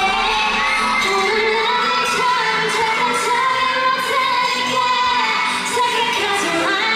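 K-pop song: female voices singing over a full pop backing track.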